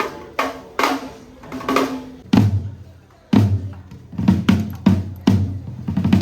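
Drum kit sound check: single drum strikes, each ringing out. A higher-pitched drum is hit about twice a second at first, then from about two seconds in a deeper drum takes over with heavier, less even hits.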